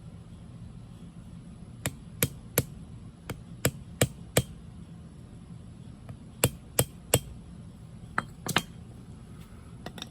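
A small hand axe striking a wooden stick set against a slipjoint pocket knife's blade on a wooden stump: about a dozen sharp knocks in short runs of two to four, with pauses between runs. The blows are knocking the blade sideways to center it in the handle.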